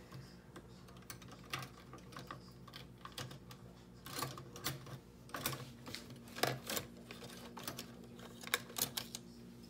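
Irregular light clicks and taps of a utensil against a pan as rice is added to chicken and stirred, over a steady low hum.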